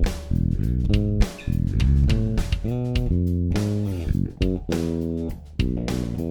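Warwick Thumb bolt-on five-string bass guitar played solo through a direct input, its raw DI tone: a line of plucked notes with a few sliding pitches and short breaks between phrases.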